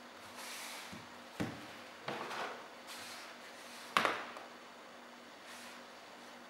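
Two smartphones, an iPhone 12 Pro Max and an iPhone 7 Plus, handled and set down on a paper planner on a desk: three light knocks, the loudest about four seconds in, with soft rustling of handling between.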